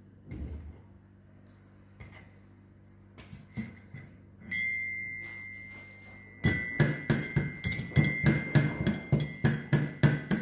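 Metal mortar and pestle pounding whole cloves into powder. A few light knocks and a ringing tone first, then from about six and a half seconds in, steady strikes about three a second, each ringing.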